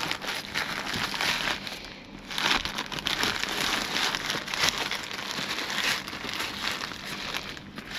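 Packaging crinkling and rustling as a box of items is rummaged through by hand, with small knocks and clicks, easing off briefly about two seconds in.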